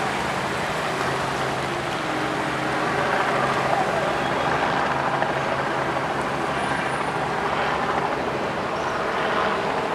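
Steady road traffic noise from vehicles running on a flooded, wet street.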